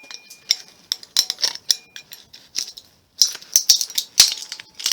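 Screwdriver prying and scraping at the plastic end pieces of a fluorescent light ballast, with irregular clicks, scrapes and rattles of plastic on metal and a thin squeak near the start. The scraping picks up again after a short pause about three seconds in.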